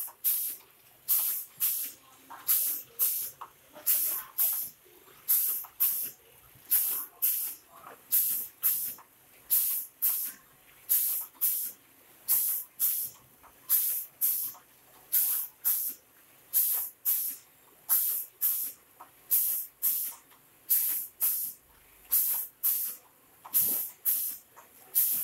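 Masala powder pouch packing machine (vertical form-fill-seal) running a steady cycle: short, sharp bursts of air hiss in pairs about every second and a half, one pair per pouch sealed and cut, over a faint mechanical clatter.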